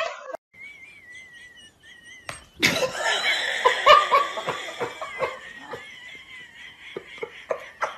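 A faint, thin wavering high tone, then from about two and a half seconds in a person laughing loudly in repeated bursts that die down toward the end.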